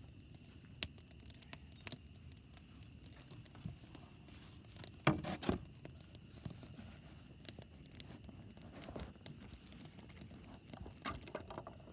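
Wood campfire crackling, with scattered sharp pops at irregular intervals and a louder brief rustling clatter about five seconds in.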